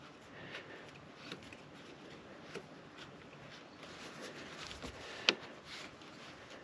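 Faint scattered clicks and light knocks from hands handling the diesel fuel filter housing and tools, with one sharper click about five seconds in.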